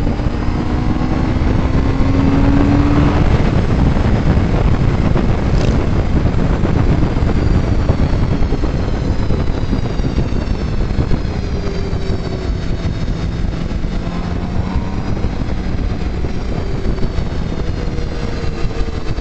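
Motorcycle riding at speed: heavy wind rush on the microphone over the engine, which revs up over the first few seconds and then runs steadily.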